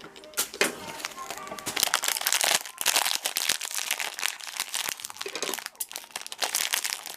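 Plastic toy packaging crinkling and crackling as it is handled and opened by hand.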